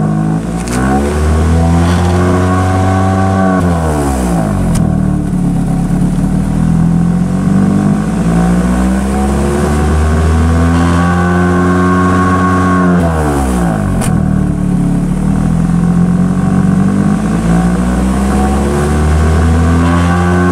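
Chery SQR484F 2.0-litre 16-valve four-cylinder petrol engine heard at the tailpipe, revved and held, then let fall back. The revs climb at the start and drop sharply about 4 s in, climb again and drop about 14 s in, and start climbing once more near the end.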